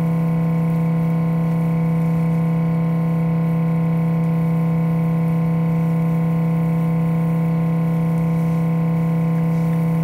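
A steady, unchanging drone with a strong low hum at its base. It cuts in and out abruptly.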